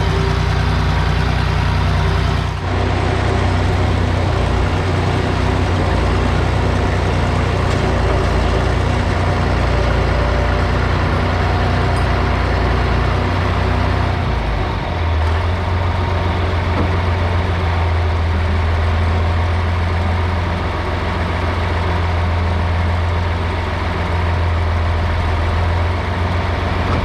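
John Deere 4230 tractor's six-cylinder diesel engine running steadily shortly after a start, with only a brief warm-up. Its note shifts slightly about three seconds in and changes again around fifteen seconds in.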